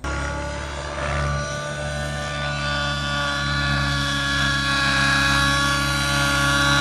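Nitro-engined RC helicopter running: a steady high engine whine mixed with the rotor. It rises slightly in pitch and grows a little louder as the helicopter flies low.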